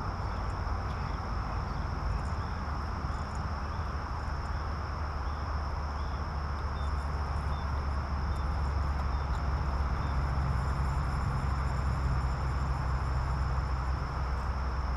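Insects droning steadily at one high pitch over a steady low rumble, which grows a little louder about ten seconds in.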